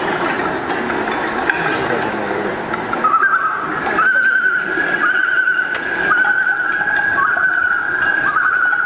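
Recorded music accompanying a dance starts suddenly with a noisy, rushing wash of sound. From about three seconds in, a sustained, wavering high melody line enters over it.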